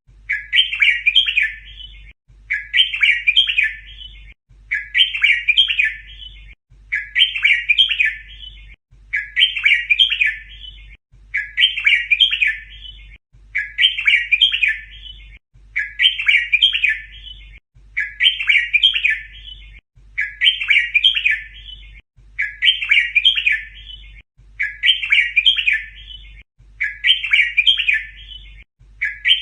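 Red-whiskered bulbul song: the same short, chirpy phrase repeated about every two seconds, a looped recording used to teach young bulbuls to sing.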